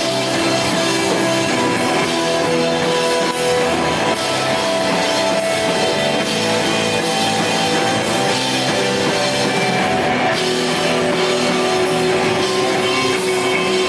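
Rock band playing live: electric guitar holding melodic notes over a drum kit, loud and continuous.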